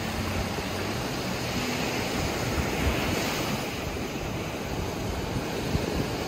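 Small surf breaking and washing up the sand in a steady wash, with wind rumbling on the microphone.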